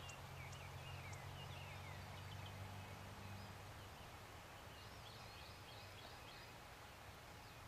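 Faint open-field ambience: small birds chirping on and off, with a low steady hum that stops about halfway through.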